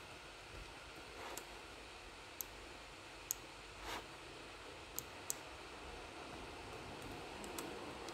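Computer mouse and keyboard clicks: about seven sharp, irregularly spaced clicks and two softer taps over a faint steady hiss.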